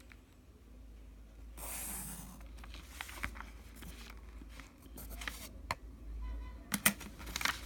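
Pen drawing lines along a plastic ruler on notebook paper. A longer scratchy stroke comes about two seconds in, with light clicks and taps of the ruler against the page, most of them near the end.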